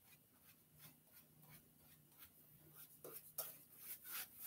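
Faint strokes of a boar-bristle shaving brush working lather over the face, a few clearer ones in the second half.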